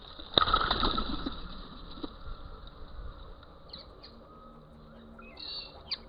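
A sharp snap about half a second in as the rat-trap trigger springs and the plastic laundry basket drops over feeding crested pigeons, followed by a second or so of flurried wingbeats as the pigeons flush. A few short bird calls follow later.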